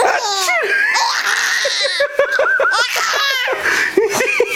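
A young child laughing hard in a long fit of giggles: quick runs of high-pitched ha-ha-ha with breathy gasps between them.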